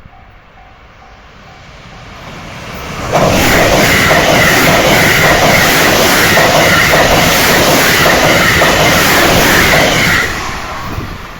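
A JR Kobe Line Special Rapid train passing a level crossing at about 134 km/h. It builds over the first few seconds, runs as a loud rush of wheel and rail noise for about seven seconds, and drops off abruptly near the end. At the start the crossing's warning bell can be heard ringing, about two to three strokes a second.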